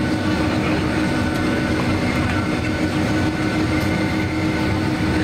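Cabin noise inside a Boeing 757-200 taxiing: the steady hum of its Rolls-Royce RB211 engines at idle, with a continuous low rumble of the aircraft rolling along the taxiway.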